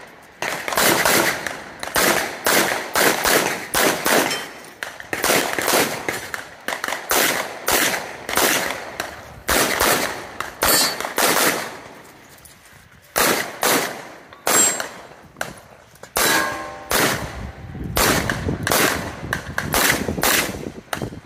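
Competition pistol fired in rapid strings of shots, often in quick pairs, with a lull of about a second around halfway through. Some hits in the second half are followed by a short ringing clang from steel targets.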